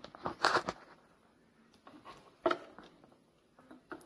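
A few light knocks and clicks of hard plastic being handled inside the opened coffee machine's casing. There are several in the first second, a sharper click about two and a half seconds in, and another near the end.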